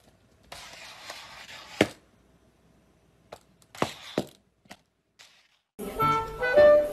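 A few sharp knocks on a hard surface: one loud knock about two seconds in and two more in quick succession around four seconds in. Music starts near the end.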